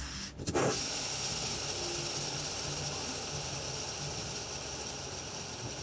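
A fidget spinner is flicked by hand with a brief clatter, then spins flat on a tabletop. Its bearing gives a steady whirring hiss that eases off slowly.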